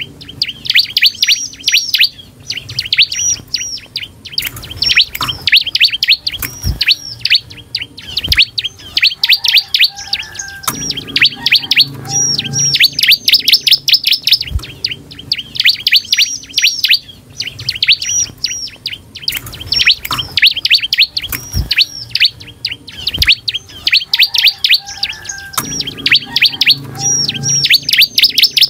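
Bar-winged prinia (ciblek) in full song: rapid, dense runs of high chirping notes with short pauses between runs, and a few sharp clicks.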